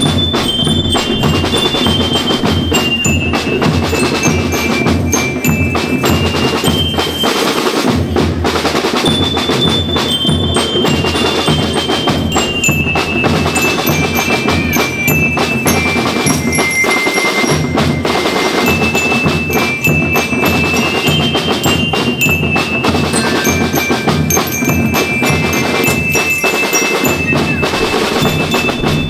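School rhythm band playing: bell lyres carry a high, bell-like melody over a steady, dense beat of snare and bass drums.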